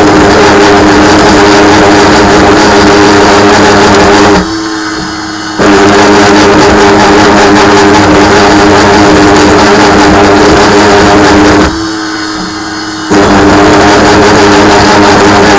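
Two-flute 1/4-inch carbide end mill at 5000 rpm cutting 1018 steel on a Sieg KX1 benchtop CNC mill: a loud, steady, tonal cutting noise. Twice the cut breaks off for about a second, leaving only the quieter spindle hum, then resumes. The noise is the sign of an end mill the owner thinks is becoming dull.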